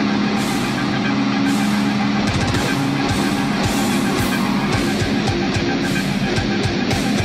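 Heavy metal music: distorted electric guitar over fast, driving drums, with cymbal crashes roughly once a second.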